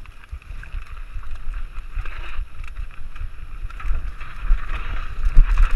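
Mountain bike descending a dry dirt singletrack at speed: wind buffeting the microphone and tyres running over dirt and leaf litter, with knocks and rattles from the bike over bumps. The rush grows louder as the bike picks up speed.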